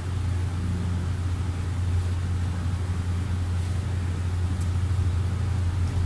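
A steady low hum that holds an even level and pitch throughout.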